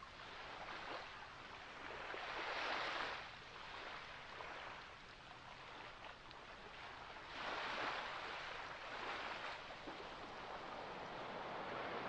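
Ocean waves washing onto a beach: two swells of surf about five seconds apart, each rising and falling away over a second or two.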